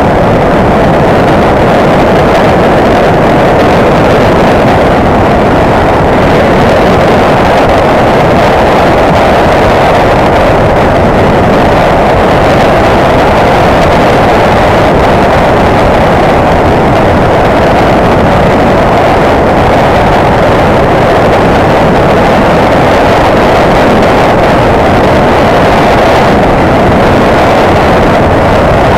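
A motorcycle on the move at steady speed: loud, steady rush of wind over the microphone, with the engine running underneath.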